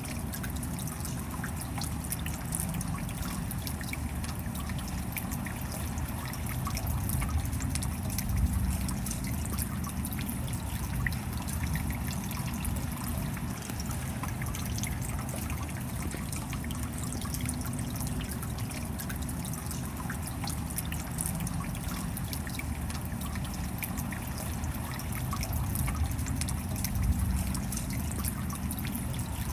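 Clear, shallow stream running over rocks in a small cascade: a steady rush of water with fine splashes. It swells slightly about eight seconds in and again near the end.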